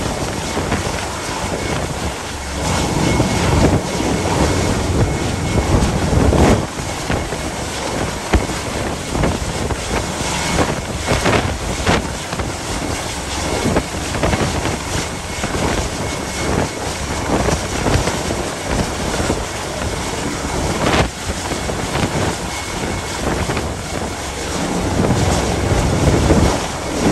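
Gale-force wind buffeting the microphone over the rush of the sea, swelling in strong gusts, with a few knocks from the buffeting.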